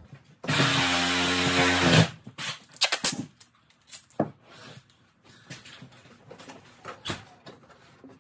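A loud, steady rasping sound lasting about a second and a half starts half a second in. It is followed by scattered knocks and clicks as a sheet-metal floor vent boot is handled and pressed into place.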